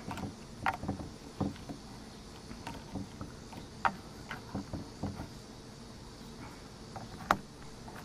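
A small cardboard knife box and the brass pocketknife inside it being handled, giving scattered light taps, clicks and rustles; the sharpest click comes about seven seconds in.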